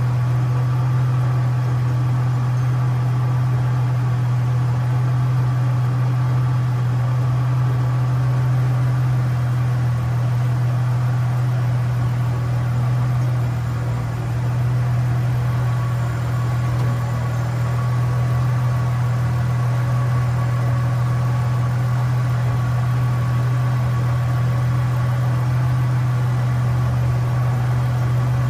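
Holden VY Commodore engine idling steadily.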